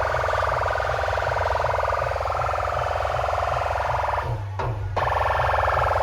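Large street DJ sound system blasting a track with a siren-like, rapidly pulsing synth over a steady bass beat of about four thumps a second. The siren part drops out for about half a second a little past four seconds in, then comes back.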